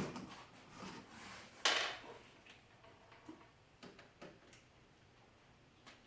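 Knocks and clicks of a shop-vac hose being pulled out of a Baltic birch plywood clamp fixture and handled. A sharp knock comes a little under two seconds in, with lighter scattered taps after.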